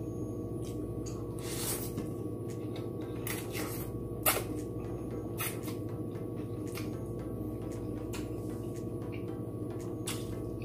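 Close-up eating sounds of sweet-potato glass noodles: slurping and chewing, with short sharp clicks of wooden chopsticks, the loudest about four seconds in. Under it runs a steady low hum.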